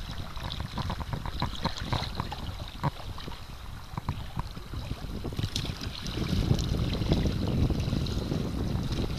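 Wind buffeting the microphone on a kayak, over water lapping and splashing against the hull and paddles, with a patter of small splashes in the first few seconds. The wind noise gets stronger in the second half.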